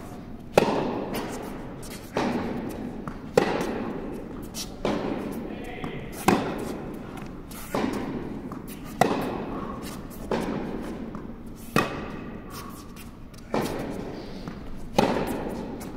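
Tennis rally: a ball struck back and forth with rackets, about one hit every one and a half seconds, louder near strikes alternating with softer far ones, each ringing on in the reverberant indoor tennis hall.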